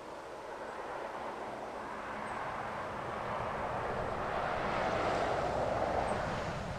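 A distant vehicle passing: its sound slowly swells to a peak about five seconds in, then begins to fade.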